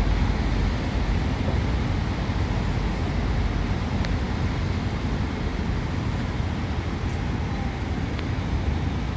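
Steady city road-traffic noise heard from high above the street, with a single faint click about four seconds in.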